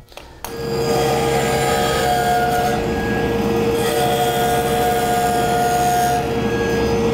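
Table saw starts about half a second in and runs steadily, its blade cutting into a wooden bowl blank that is turned by hand face-down over it on a hollowing jig, scraping out the bowl's inside. A steady whine carries a higher squealing tone that comes and goes.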